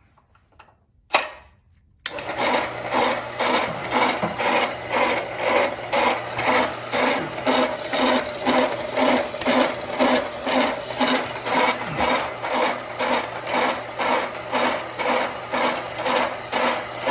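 A sharp click about a second in, then the horizontal bandsaw's electric motor starts abruptly and the saw runs steadily with a regular pulsing about twice a second.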